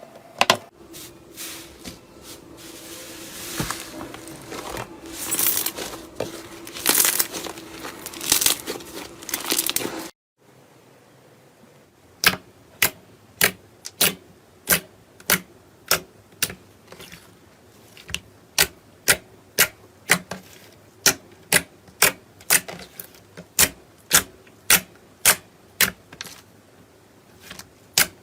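Close-miked ASMR handling sounds in two clips: first crinkling and crackling over a faint steady hum, then, after a short cut about ten seconds in, a long run of sharp crisp clicks at an even pace of about one and a half a second.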